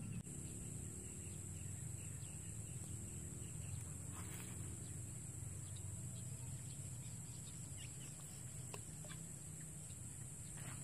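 Faint outdoor ambience: a steady low hum and a steady high hiss, with a few soft fowl-like clucking calls.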